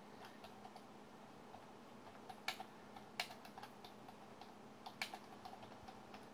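Faint computer keyboard typing: irregular keystrokes, with a few sharper key presses in the middle.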